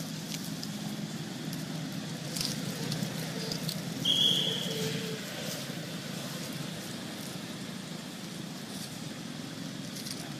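Steady low background hum with scattered light rustles, and one short high-pitched squeak about four seconds in.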